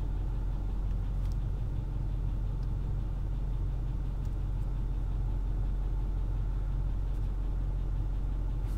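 Tow truck's engine idling steadily, heard from inside the cab.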